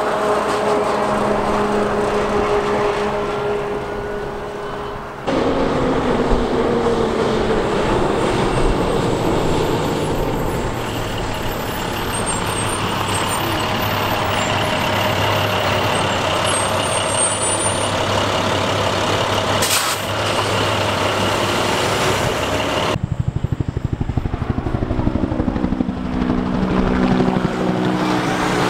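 Heavy diesel fire trucks passing one after another: a fire engine, an International wildland fire engine, and a Kenworth tractor-trailer hauling a bulldozer, their engines running, with the sound changing abruptly between takes. A short hiss of air brakes comes about two-thirds of the way through, and a pulsing diesel rumble at the end.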